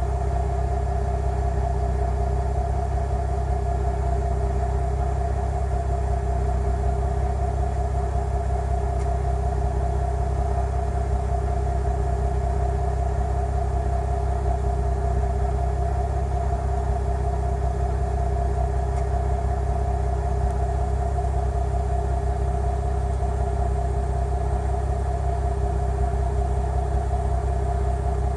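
Chrysler 3.5L V6 engine running at a steady speed, with a ticking that the owner calls weird.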